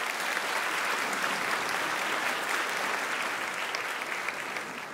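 Crowd applauding, a steady dense clapping that fades out near the end.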